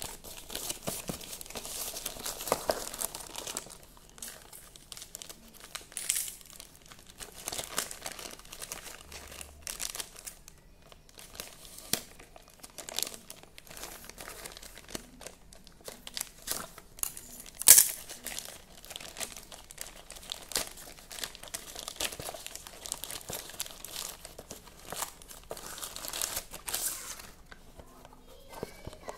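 Plastic courier mailer bag crinkling and rustling as it is handled, cut open with scissors and torn, then a bubble-wrapped plastic box is pulled out. Irregular rustles and crackles, with one sharp, loud snap a little past halfway.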